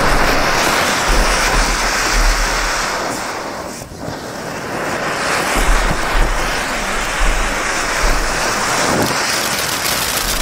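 Bright Star Overload Burger firework fountain spewing sparks with a loud, steady hiss, which dips briefly about four seconds in and then builds again. A few sharp pops sound in the second half as the coloured pearls and crackle begin.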